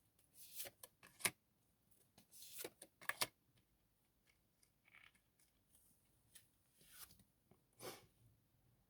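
Faint handling of tarot cards: scattered soft swishes and sharp clicks as cards are slid and laid down, the sharpest about a second in and about three seconds in.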